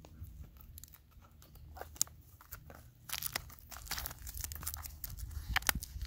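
Clear plastic shrink wrap being picked at and peeled off a box by hand, crinkling and crackling irregularly, sparse at first and much busier from about halfway through.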